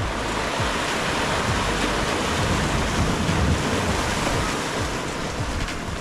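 Steady rush of water, with wind rumbling and buffeting on the microphone.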